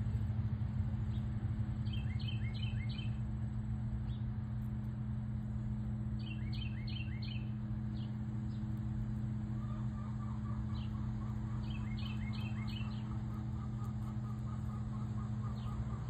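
A bird singing a short phrase of quick falling notes three times, a few seconds apart, over a steady low hum. A rapid chattering trill starts about ten seconds in.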